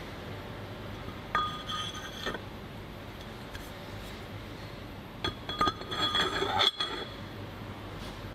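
Steel cylinder sleeves being set loosely by hand into the bored aluminium cylinders of a Subaru EJ22 engine case, not yet pressed in. There is one ringing metal clink about a second and a half in, then a quick run of clinks and rattles near the end, over a steady background hum.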